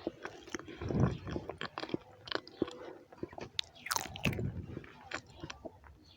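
Close-miked chewing of a mouthful of rice and beans, with many short wet mouth clicks and smacks. A louder low burst comes about a second in, and a quick falling sweep about four seconds in.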